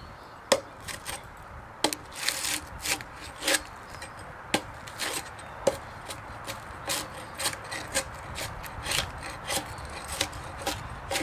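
Survive! Knives GSO-10 fixed-blade knife scraping and chopping bark off an oak log: a string of irregular sharp knocks of the blade on the wood, about one a second, with the scratchy rasp of bark being scraped and peeled away.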